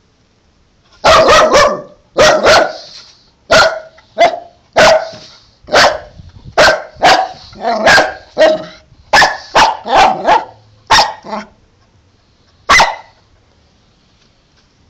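Dog barking: a long run of about twenty sharp, loud barks, some in quick pairs, starting about a second in, then a pause and one last bark near the end.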